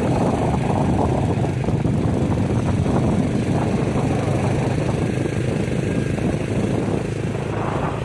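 Motor vehicle engine running steadily at cruising speed, under a steady rush of wind noise on the microphone.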